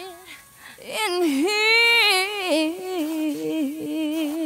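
A lone singing voice with no accompaniment: a sliding, wavering line that settles into one long held note.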